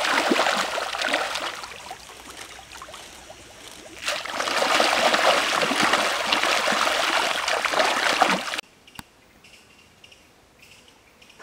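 Many fish thrashing at the surface of a pond, a dense splashing and churning of water. It eases off about two seconds in, surges again about four seconds in, and stops abruptly about eight and a half seconds in, leaving only faint background sounds.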